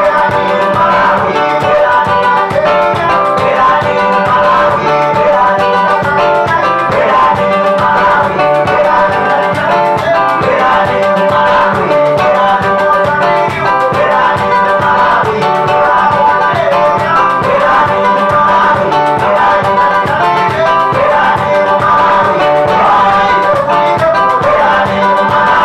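A small acoustic band playing live, with guitar and banjo strumming over drums and a singer's voice, in a steady upbeat groove.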